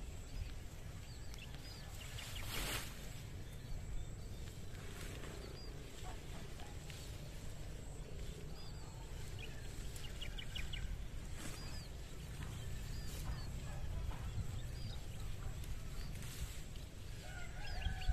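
Outdoor farm ambience: small birds chirping in short repeated calls over a low steady wind rumble on the microphone, with one short rustling burst about three seconds in.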